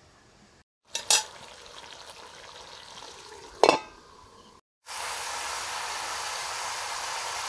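Two metallic clinks from a metal lid on a kadai, the second louder and ringing. Then a steady, loud sizzle of chicken pieces frying in the kadai in ghee and spices.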